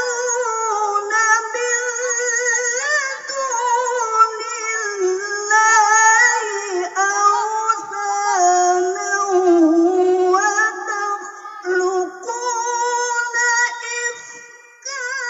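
A woman reciting the Qur'an in the melodic tilawah style, one high voice holding long, ornamented notes that waver rapidly, in long phrases broken by short breaths.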